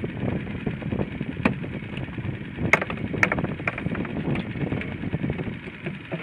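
Wind noise on the microphone over the sea around a small boat, with a few sharp clicks about one and a half to three and a half seconds in.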